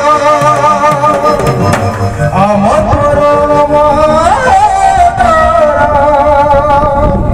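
Live Odia folk music played through a stage PA: a melody of long, wavering notes with two sharp upward slides, over the beat of shoulder-slung barrel drums.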